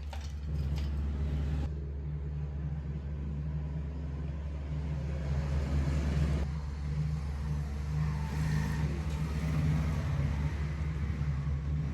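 An electric power tool's motor running steadily with a constant low hum. From about halfway through, a rough rubbing and grinding noise of metal being worked grows louder over it.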